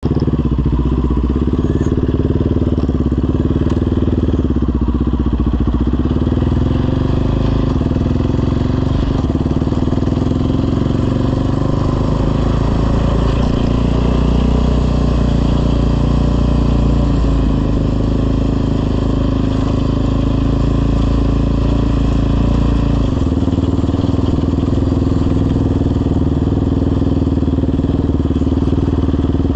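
Yamaha Raptor 700R quad's single-cylinder four-stroke engine running through a full CT Racing aftermarket exhaust while the quad is ridden. The engine note stays steady, with only small changes in pitch.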